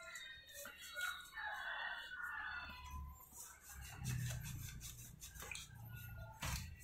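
A rooster crowing faintly: one long call that falls away about three seconds in.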